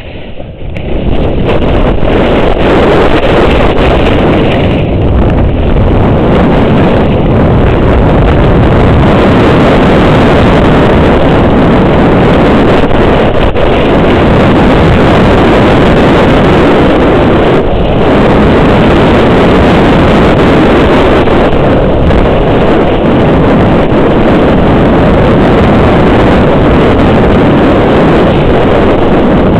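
Loud, steady rush of wind buffeting the camera microphone, mixed with skis running over snow, during a fast downhill ski run through trees. It rises sharply about a second in and then holds.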